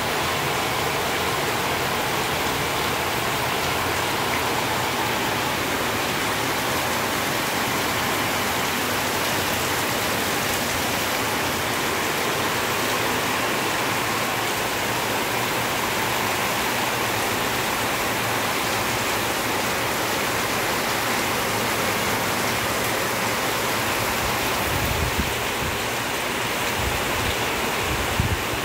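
Heavy rain pouring steadily, a dense even hiss with no letup. A few dull low bumps near the end.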